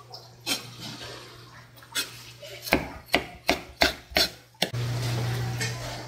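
A kitchen knife knocking against a plastic cutting board, a few scattered taps and then about six sharp knocks in quick succession. Near the end a steady low hum comes up.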